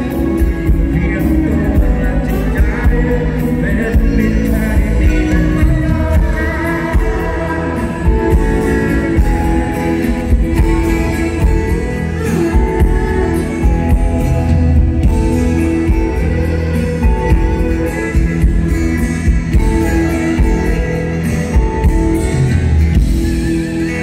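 Live Thai rock band playing a song, with acoustic guitar, electric guitar and keyboard, and a man singing at times.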